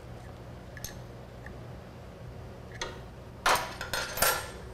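Tightening a 12 mm nut on a motorcycle starter's battery-cable terminal: a few separate light metal clicks from the wrench, then two louder brief clatters near the end as the tool and cable are handled.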